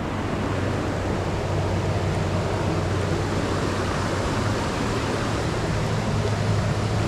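Steady rushing of flowing creek water, with a low rumble underneath.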